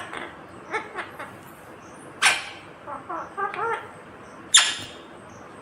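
Green ringneck parakeet calling: short chattering chirps, then two loud, harsh screeches, one about two seconds in and one near the end, with a run of warbling chatter between them.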